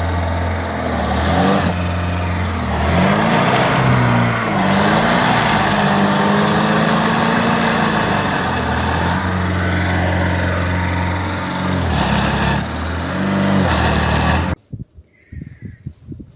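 Vehicle engine running under load, its pitch rising and falling as it is revved a few times, then holding steadier. It cuts off abruptly near the end, leaving faint scattered knocks.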